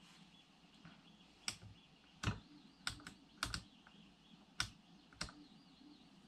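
Clicks and taps on a laptop: about eight sharp ones at uneven intervals, some in quick pairs, over a faint steady hiss.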